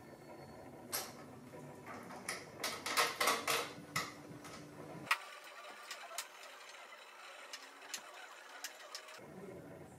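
Light clicks and ticks of a hand screwdriver driving the screws of a motorcycle handlebar switch housing, with a quick run of clicks between about two and four seconds in and sparser ticks after.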